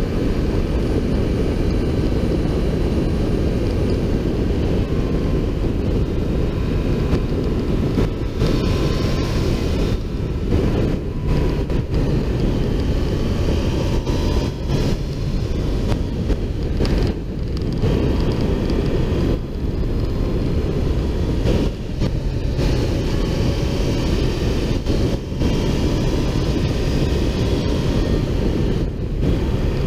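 Motorcycle riding at speed, heard from a camera mounted on its fairing: heavy wind rush over the microphone covers everything. The engine's whine rises and falls underneath it.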